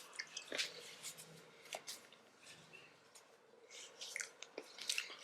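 Faint chewing with scattered mouth clicks, someone eating close to the microphone.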